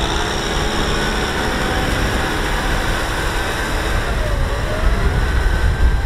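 Kubota M6040SU tractor's diesel engine running steadily under load as it drives itself and a trailer through deep mud.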